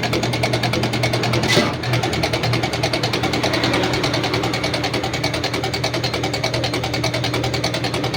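Machinery running steadily with a rapid, even clatter, dipping briefly about one and a half seconds in.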